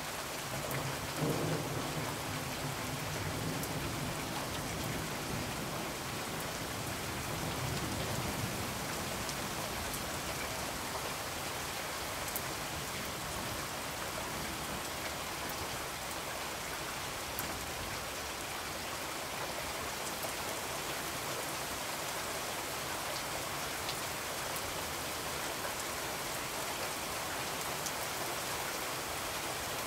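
Steady rain, with low rumbles of thunder about a second in and again around eight seconds in.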